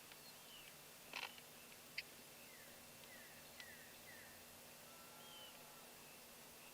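Faint wild birds chirping, with many short, high, falling calls scattered throughout. A brief rustle about a second in and a single sharp click a second later.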